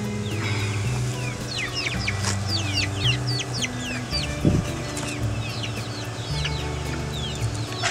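Young chickens clucking and peeping, many short high falling peeps, over background music with steady low chords.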